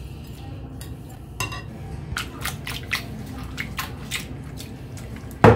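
Hands mixing raw shrimp coated in oil and spices in a glass bowl: wet squishing with scattered light clicks, and one loud knock near the end.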